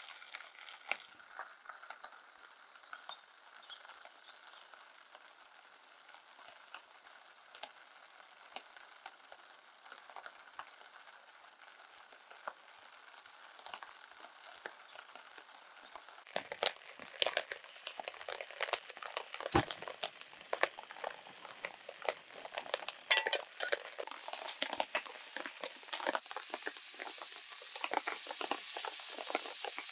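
Food sizzling in a small camp frying pan. Faint scattered crackling gives way about halfway through to sharper pops and spits, and in the last few seconds the pan settles into a loud, steady sizzle.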